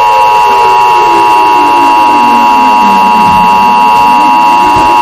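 Emergency Alert System attention signal: a loud, steady, harsh two-tone alarm. Beneath it a lower sound glides down in pitch and climbs back up again a little past the middle.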